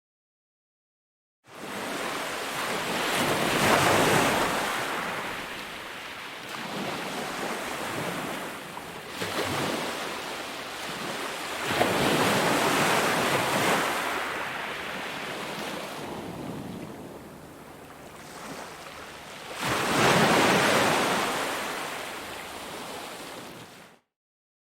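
Ocean waves breaking on the shore, three big surges about eight seconds apart, each swelling and washing back down. The sound starts abruptly after a second and a half of dead silence and cuts off suddenly near the end.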